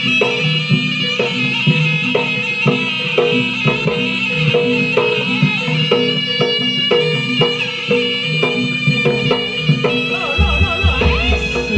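East Javanese jaranan music: a shrill reed horn, the slompret, holds a sustained, wavering melody over a steady, quick drum and gamelan beat. A deeper low beat joins near the end.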